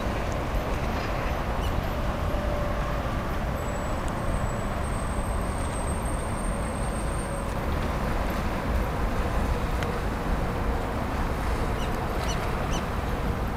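Steady riverside city ambience: a low hum of distant traffic with wind rumbling on the microphone. A faint thin high whistle comes in about four seconds in and lasts a few seconds.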